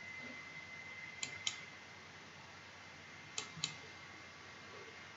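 Two double-clicks of a computer mouse, a couple of seconds apart, over a faint steady high whine that stops at the first double-click.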